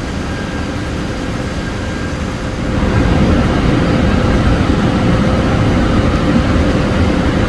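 Hyd-Mech V-20APC vertical band saw running: a steady machine hum with a faint constant whine, which steps up in loudness about three seconds in as the machine takes on more work.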